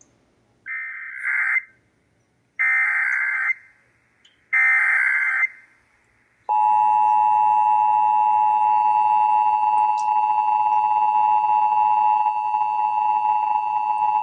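Emergency Alert System test signal: three bursts of SAME header data tones, each about a second long, two seconds apart. About six and a half seconds in, the steady two-tone EAS attention signal starts and holds.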